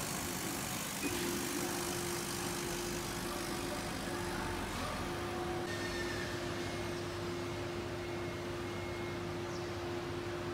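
Stepper motor of a CO2 laser cutter's lift table driving a toothed belt and two lead screws, a steady whine that starts about a second in, breaks off briefly a little before the middle, and runs on.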